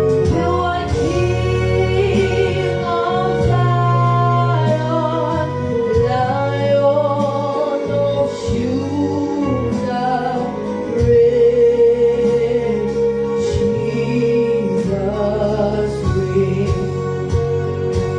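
Gospel praise-and-worship song: voices singing over sustained keyboard chords.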